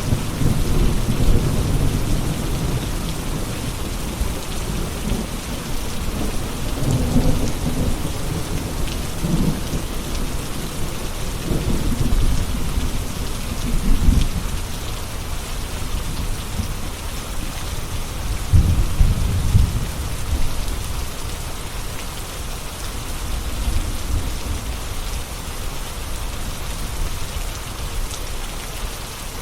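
Steady rain, with low rolling thunder rumbling several times through the first two-thirds and fading away near the end.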